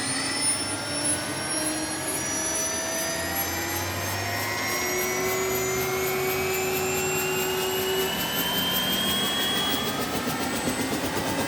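Helicopter turbine engine starting up: several whining tones climb slowly in pitch as the engine spools up, with a rapid even pulsing growing in from about halfway.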